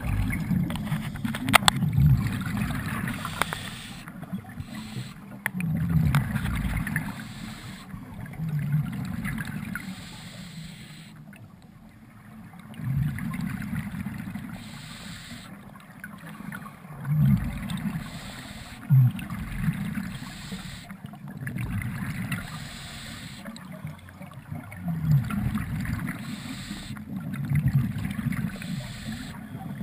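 Scuba divers' exhaled regulator bubbles heard underwater: low gurgling rumbles in surges every few seconds as breaths are let out, with a soft hiss between them.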